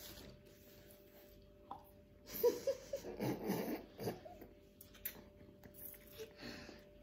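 A short wordless vocal outburst from a person reacting to the taste of a sour dried fruit. It starts about two and a half seconds in and lasts under two seconds, with a few small mouth sounds after it.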